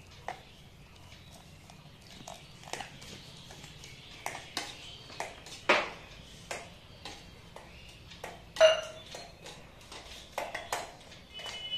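Metal spoon clinking and scraping against a stainless steel mixer jar while stirring a thick powdered-milk mix with water: irregular taps, a couple of louder ringing knocks about six and eight and a half seconds in.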